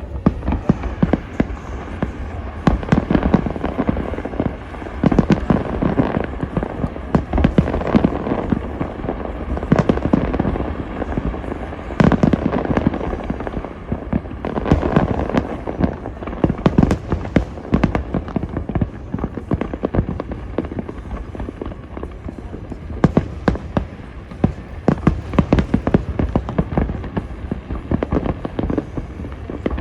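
Fireworks display at full intensity: many shell bursts in quick succession, with sharp bangs and crackling overlapping over a continuous low rumble.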